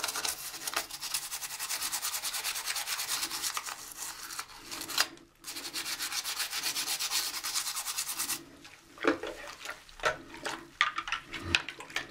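A soapy toothbrush scrubbing a muddy plastic model car part in fast, even back-and-forth bristle strokes, with a brief pause about five seconds in. After about eight seconds the scrubbing thins to scattered, separate strokes.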